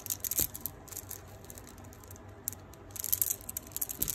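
A beaded gold-tone necklace being handled, its beads clicking and rattling against one another in scattered runs of small clicks. The clicks come near the start and again from about two and a half seconds in.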